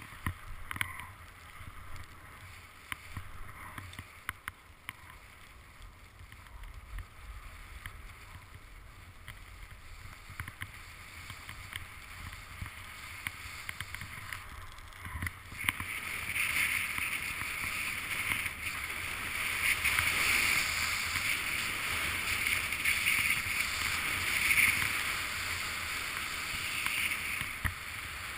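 Skis sliding over groomed snow: a scraping hiss with scattered light clicks that grows clearly louder about halfway through.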